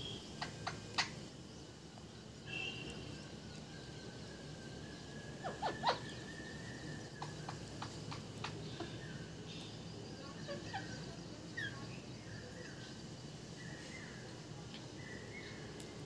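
Scattered short bird chirps and a few sharp clicks over a low steady background hum, the loudest clicks about one second and six seconds in.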